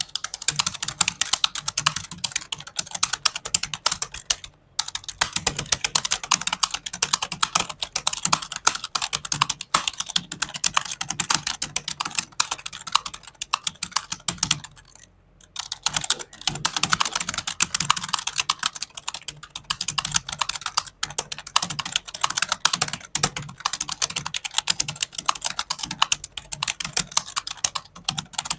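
Fast, continuous typing on a computer keyboard, a dense stream of key clicks, broken by two short pauses, at about four and a half seconds and again around fifteen seconds.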